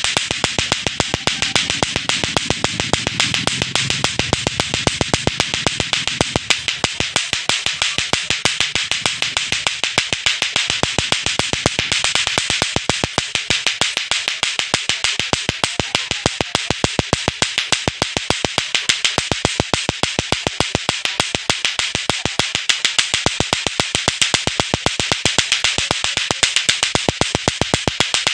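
Lato-lato clackers: two hard plastic balls on a string, swung up and down from the hand so they knock together again and again in a rapid, even, loud clacking.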